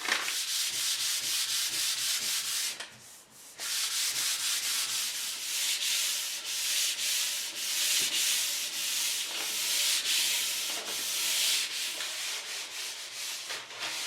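Brown paper bag (kraft paper) rubbed in repeated back-and-forth strokes over a wood countertop's cured satin finish to smooth it, a dry hissing rub with a short pause about three seconds in.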